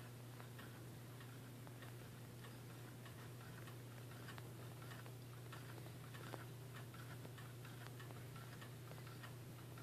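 Two 'Miser' low-temperature-differential Stirling engines running on the heat of hot water, their moving parts giving off faint, quick, slightly uneven clicking over a steady low hum.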